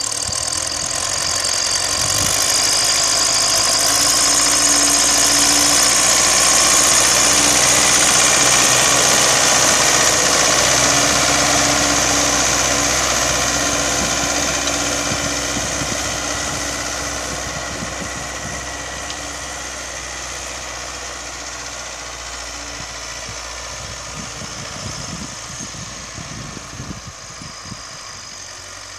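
MTZ-82 tractor's four-cylinder diesel engine running steadily as it pulls a cultivator across the field, growing louder over the first few seconds as it passes close, then fading as it moves away.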